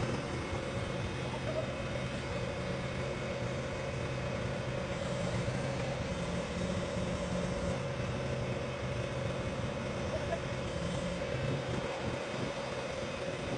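Engine of heavy lifting equipment running steadily, with a constant low drone.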